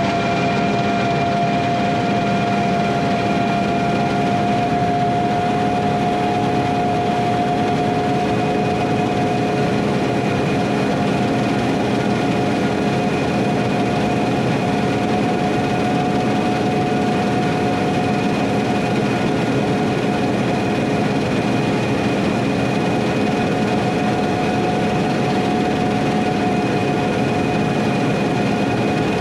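Machinery running steadily, with a constant whine over a broad mechanical noise.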